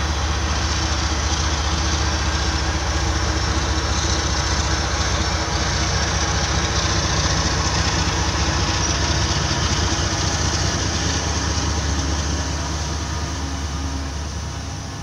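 Diesel engines of a passing coal train's rear locomotives, a BNSF SD70MAC and an ES44AC, running with a steady low drone that fades over the last few seconds as the train moves away.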